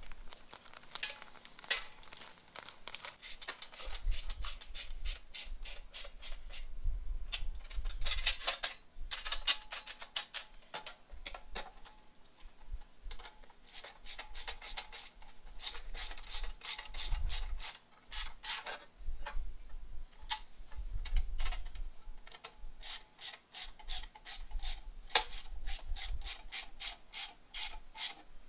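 Ratcheting wrench clicking in quick runs as nuts are run down on a bolted bracket, with short pauses between runs and a few dull knocks from the parts being handled.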